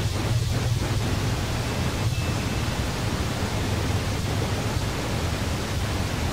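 Steady outdoor background noise: an even hiss over a low rumble, with no distinct event standing out.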